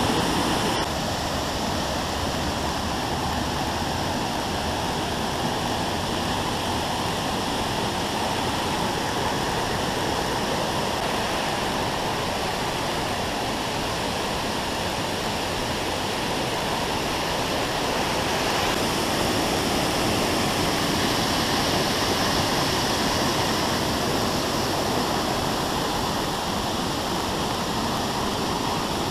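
Steady rush of water pouring down a waterfall.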